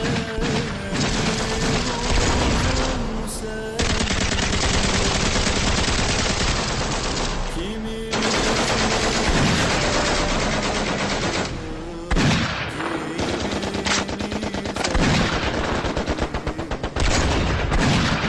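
Battle gunfire: nearly continuous rapid machine-gun and rifle fire, with brief lulls every few seconds.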